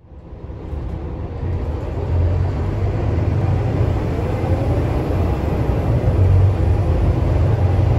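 Scania K320UA articulated bus's rear-mounted five-cylinder diesel and drivetrain, heard from inside the passenger cabin while driving: a steady low rumble that fades in over the first two seconds, with a faint whine rising in pitch a few seconds in.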